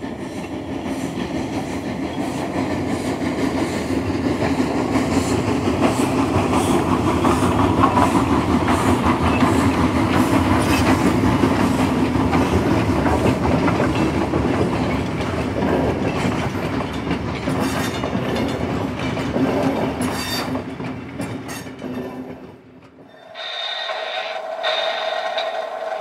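A train rolling along the track with a steady rumble and wheel clatter that swells over the first few seconds. It drops away near the end and gives way to a different, pitched sound.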